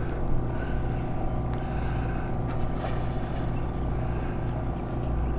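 A boat's engine running steadily: an even, low hum that holds the same pitch.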